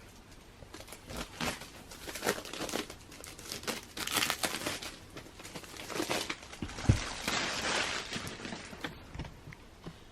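Magazine packaging being unwrapped, crinkling and tearing in irregular bursts, with a soft thump about seven seconds in.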